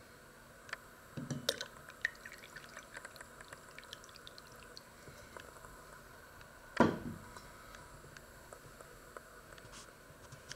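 Liquid poured into a ceramic mug, with small clinks and ticks. About seven seconds in there is a single loud knock.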